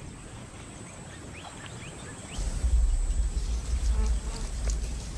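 Lions growling low at a kill: a deep rumbling growl starts a little over two seconds in and carries on. A few faint bird chirps come before it.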